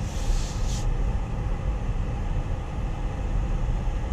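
The Corvette Grand Sport's 6.2-litre LT1 V8 running as the car rolls slowly, a steady low rumble heard from inside the cabin, with a short hiss in the first second.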